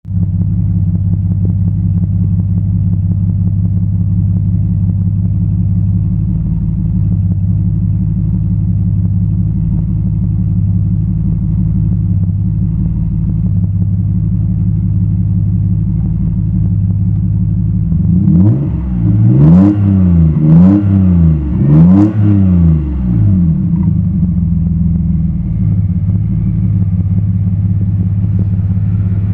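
Exhaust of an Alfa Romeo 164 Super's 3.0-litre 24-valve V6 idling steadily, then revved three times in quick succession about two thirds of the way through, each rev rising and falling back, before returning to idle.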